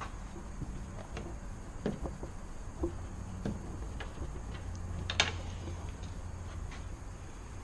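Light plastic clicks and knocks from a car door mirror assembly being handled and its wiring connector fitted at the door, with one sharper click about five seconds in.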